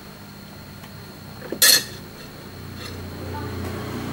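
Metal tweezers set down on a hard worktop with a single sharp clink about one and a half seconds in. A low hum swells in near the end.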